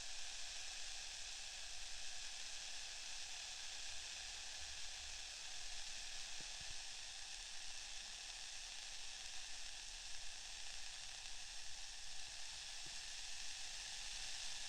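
Steady, soft rustling hiss close at the ear from an ear-cleaning treatment, with faint taps about six and thirteen seconds in.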